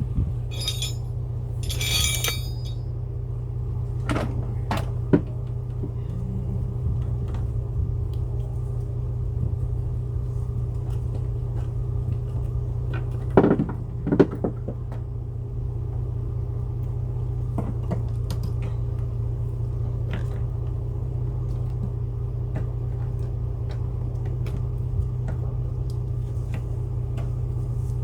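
A steady low rumble with scattered clicks and knocks of hand tools and parts being handled under a car's hood, the loudest a pair of knocks about halfway through, and two brief rattles near the start.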